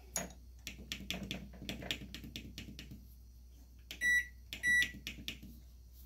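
Mandine microwave oven running briefly with a low hum and rapid clicking, then two short beeps from its control panel about four seconds in. The oven has started by itself on the door being closed, with no button pressed: the sign of a faulty open-door detection switch.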